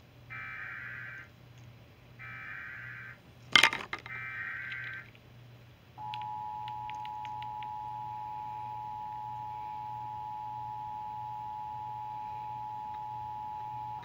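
Emergency Alert System alert for a severe thunderstorm watch: three short bursts of SAME header data tones, then the steady two-tone EAS attention signal that runs for about eight seconds. A sharp click sounds between the second and third bursts.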